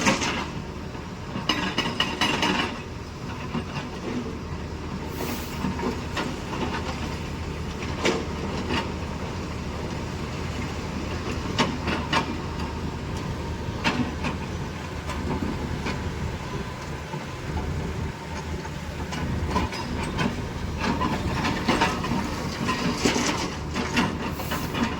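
Tata 470 excavator working: its diesel engine runs steadily while irregular metallic clanks and knocks sound every second or two.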